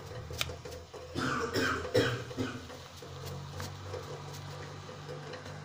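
Tempering of cumin, mustard seeds, dried red chillies and curry leaves with chilli powder and sambhar masala in hot oil in a kadai, sizzling with scattered small pops and crackles. A brief cough about a second in, and a steady low hum from about three seconds in.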